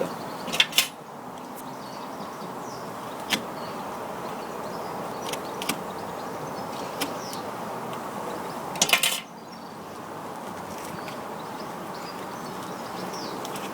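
A blade working at a tough leather-covered cork hurling ball (sliotar), giving a few sharp clicks and scrapes, with a short cluster about nine seconds in, over a steady background hiss.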